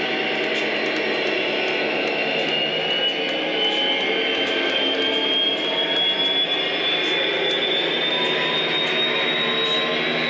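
O scale model train running on its track: a thin electric-motor whine climbs slowly in pitch as the train gathers speed, over a steady rumble of wheels on rail, with light irregular clicks.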